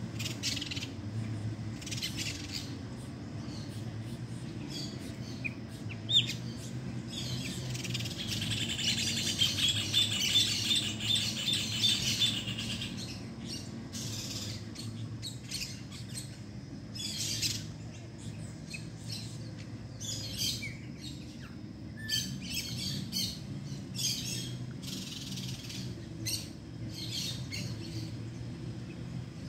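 Small songbirds feeding on the ground chirp in short calls, with a rapid, insistent trill for several seconds about a third of the way in. A steady low background hum runs underneath, and there is one sharp tap about six seconds in.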